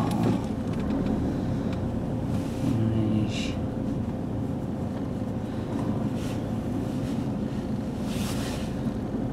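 Car cabin noise in slow-moving traffic: a steady low engine and road rumble, with two brief faint hisses, one about two and a half seconds in and one near the end.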